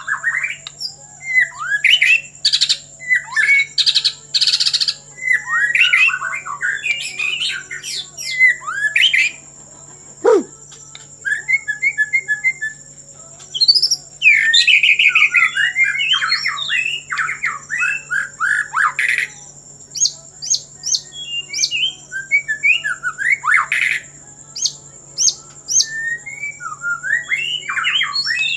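White-rumped shama singing a loud, varied song of short whistled phrases, quick trills and sweeping notes with brief pauses between, including mimicked calls likened to a kingfisher's. A faint steady high-pitched whine sits underneath.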